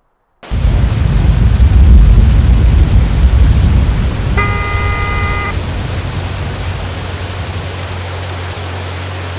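Thunder rumbling loudly with heavy rain, cutting in abruptly after a moment of silence and easing into a steady rushing storm noise. A brief pitched tone sounds about four and a half seconds in.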